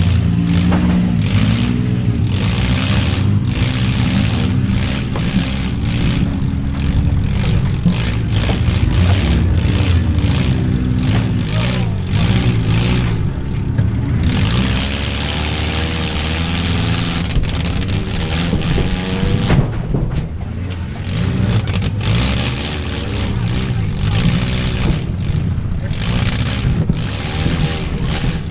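Demolition-derby van engine revving hard and changing pitch, heard from inside the van, with frequent sharp knocks and bangs. About half way through there is a stretch of loud hiss lasting some five seconds.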